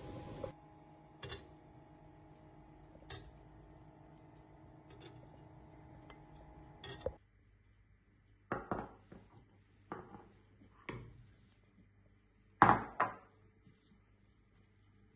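Metal kitchen tongs clicking a few times against a ridged grill pan over a steady hum. The hum stops suddenly about halfway through, and then come separate knocks and clinks of handling on a marble worktop, the loudest a close pair about two-thirds of the way through.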